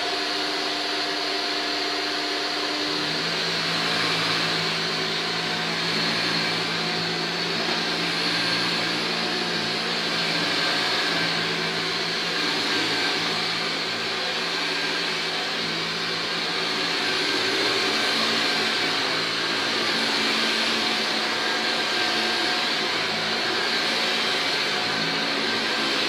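Shark NV801UKT Duo Clean lift-away upright vacuum running steadily as it is pushed over carpet: motor whine and rushing air with the floor-head brushroll turning. A low hum drops in pitch about three seconds in.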